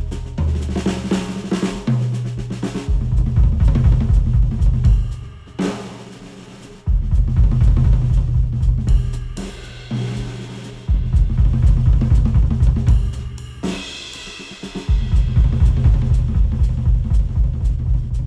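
Instrumental music with a drum kit and heavy pulsing bass, played through HIFIMAN Edition XS planar-magnetic headphones and picked up by microphones at the earcups. The bass and drums drop out briefly three times.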